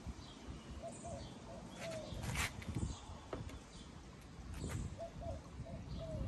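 A dove cooing in two three-note phrases, one about a second in and one near the end. Between them come a few sharp clicks and knocks of small parts and tools being handled.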